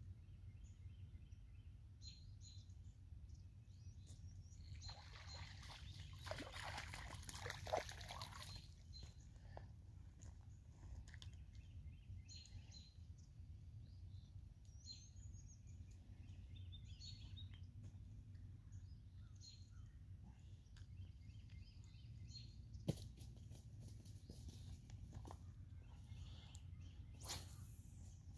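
Near silence with faint bird chirps scattered throughout. A louder rustling noise lasts a few seconds from about five seconds in, and single sharp clicks sound about eight and twenty-three seconds in.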